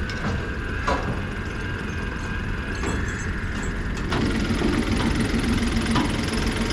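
Vehicle engine running steadily, with scattered clicks and rattles. About four seconds in, the engine note gets fuller and a little louder.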